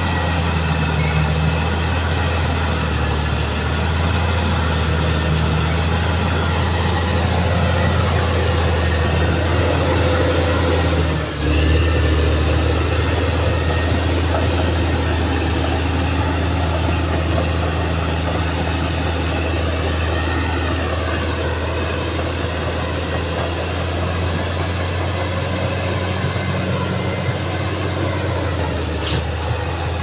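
Caterpillar D6R XL crawler bulldozer's diesel engine running steadily under load as it pushes soil, with its steel tracks running and a steady high whine over the engine.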